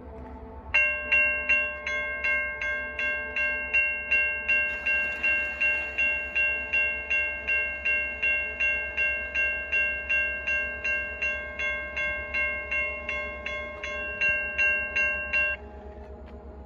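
Railroad grade-crossing warning bell ringing in rapid, evenly spaced strokes: the crossing signal is activated for an approaching train. It starts about a second in and stops suddenly about a second before the end, over a low steady rumble.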